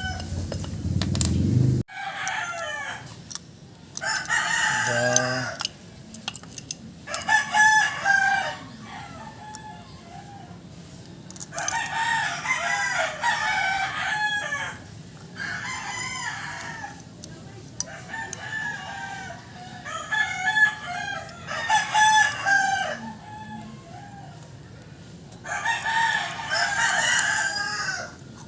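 Roosters crowing again and again, about nine crows of one to two seconds each, some close together. Before them, a loud low rumble stops abruptly about two seconds in.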